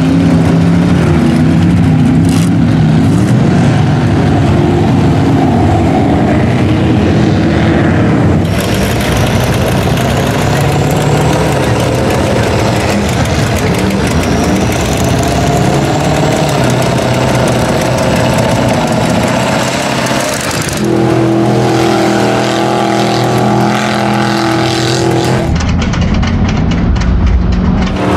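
Engines of lifted mud trucks running and revving hard through a mud pit. The sound changes abruptly about 8 s, 21 s and 25 s in as it switches from one truck to another. Through the middle stretch a high whine rises and falls over the engine.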